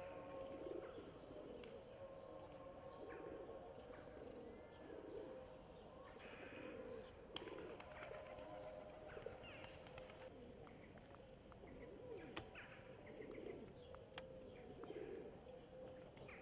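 Faint cooing of pigeons, low calls repeating about once a second, with a few short, higher chirps of small birds.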